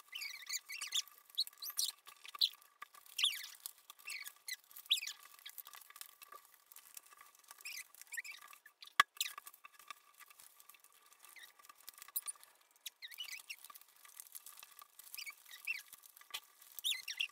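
Origami paper rustling and being creased as it is folded on a tabletop: many short squeaky scrapes and crackles, with one sharp click about nine seconds in. A faint steady high hum runs underneath.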